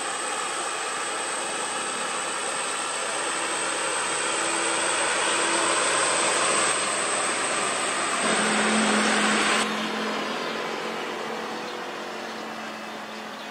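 Diesel engine of a heavily loaded light truck labouring up a hill road, a steady hum over a dense rushing noise that grows louder, then drops off suddenly about ten seconds in and fades.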